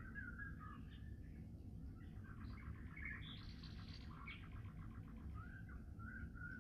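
A small songbird singing a warbling song of quick phrases, with a fast rattling series of notes in the middle, over a steady low rumble.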